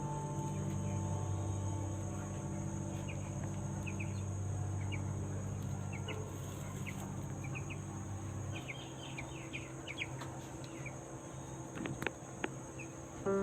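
Short, high bird chirps come scattered through, thickest past the middle, over a steady high insect drone. A low held note fades out about two-thirds of the way in, and there are a couple of clicks near the end.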